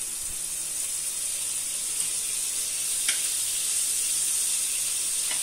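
Butter sizzling as it melts on a hot tava (flat griddle), a steady high hiss with a couple of faint ticks.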